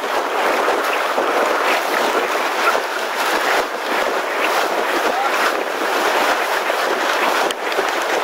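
Strong wind blowing steadily, a loud, unbroken rushing hiss.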